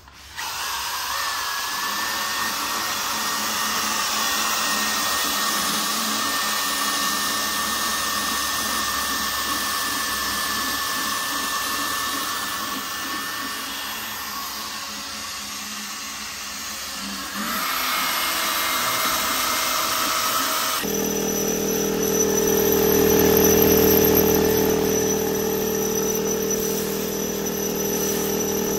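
Power tool running steadily with a whine. Its sound shifts about two-thirds of the way through, then turns lower and louder for the last several seconds.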